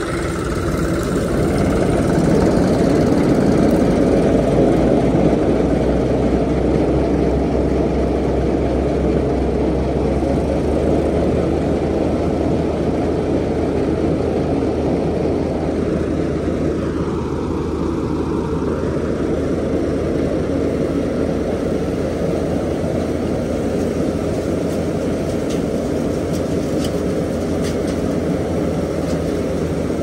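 New Holland 3630 tractor engine running steadily under load while driving a PTO straw reaper that chops and blows straw, the engine running without a turbocharger. Its pitch dips briefly about halfway through, then recovers.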